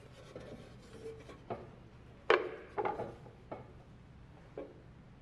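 Hinged wooden doors of a kamishibai stage box being swung shut: several wooden knocks and rubs, the loudest about two seconds in, then lighter knocks, the last near the end as the small latches are handled.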